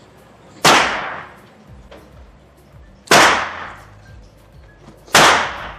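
Three pistol-calibre gunshots from other shooters on the range, about two to two and a half seconds apart, each followed by a long echo.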